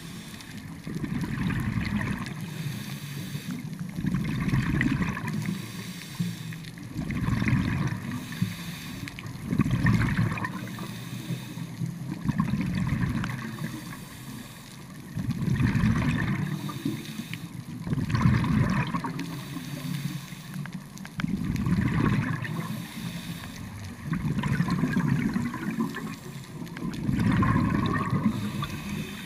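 Scuba diver breathing through a regulator underwater: exhaled bubbles in regular bursts about every two to three seconds.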